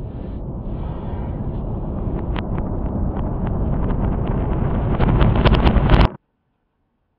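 Building implosion of a stadium grandstand: a heavy low rumble that builds steadily, with sharp cracks and bangs coming faster and louder toward the end, then the sound cuts off abruptly about six seconds in.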